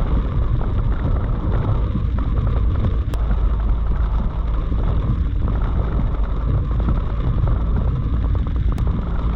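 Heavy rain drumming on a moving car, a dense patter of drops over a steady low rumble of engine and road noise.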